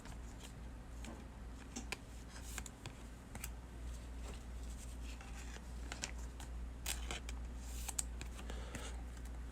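Trading cards and their packaging being handled: scattered soft clicks and rustles over a low steady hum.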